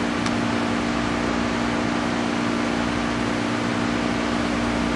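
Steady mechanical hum of ship's machinery below decks, an even rushing noise with a constant low drone.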